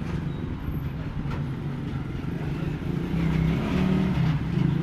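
A motor or engine running with a steady low hum that grows louder about three seconds in.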